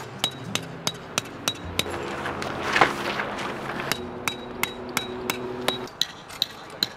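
Sharp metallic taps, about three a second and each with a brief ring, over a few steady held tones.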